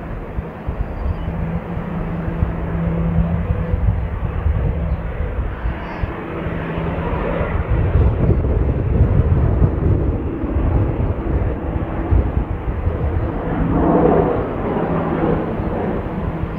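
Jet aircraft engine noise, a steady rumbling roar that swells about halfway through and again near the end.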